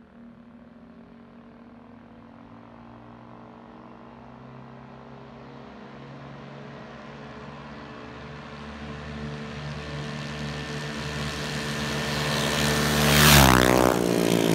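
A mini bike's small engine at high speed, first heard far off and growing steadily louder as it approaches. It passes close by about 13 seconds in, at its loudest, and its pitch drops sharply as it goes past and away.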